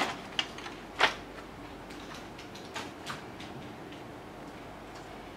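Plastic front cover of a Brother HL-5450DN laser printer being pulled open: a few sharp clicks and knocks. The loudest comes about a second in, and two lighter knocks follow around three seconds in.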